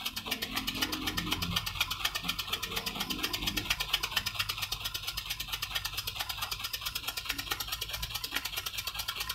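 Homemade miniature steam engine running fast and steadily, its connecting rod turning a large flywheel: a rapid, even ticking clatter of about a dozen beats a second over a low hum.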